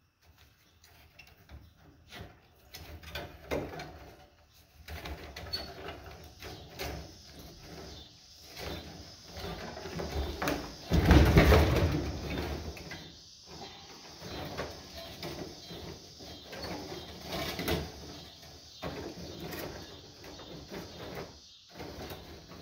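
Copper winding bars being bent and pulled out of a large armature by hand: irregular metallic scraping, clinking and rattling, with a louder, rougher stretch about halfway through.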